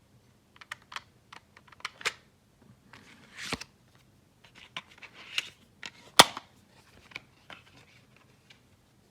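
Plastic toy transformation-belt parts being handled: irregular clicks and light rattles, with a sharp snap about six seconds in and a duller knock a few seconds earlier.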